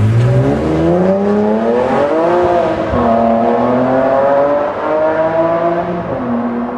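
BMW E46 M3's S54 straight-six, fitted with Evosport headers and a Supersprint Race exhaust, accelerating hard as it pulls away. The revs climb, drop at an upshift about three seconds in, climb again and drop at a second shift near the end, and the sound slowly fades.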